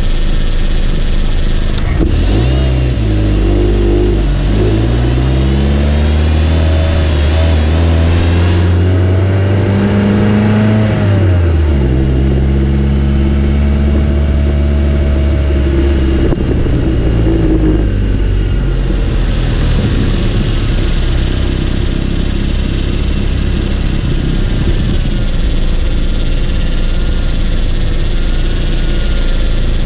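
Turbocharged Mazda MX-5 NC 1.8 four-cylinder engine heard from inside the engine bay, beside the turbo and its open intake filter. The revs climb in steps from about two seconds in, stay up until about halfway, then drop back to a low steady run.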